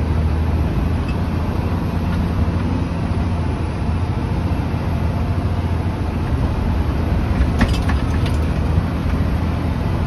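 Scania tipper truck's diesel engine pulling steadily in third gear low range, revs held around 1,500, heard from inside the cab. A brief rattle comes about seven and a half seconds in.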